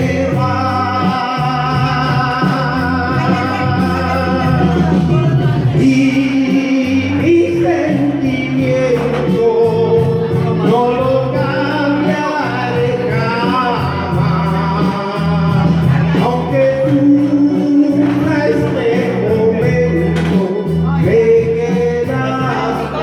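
Music: a song with a voice singing long held notes over a steady bass and accompaniment.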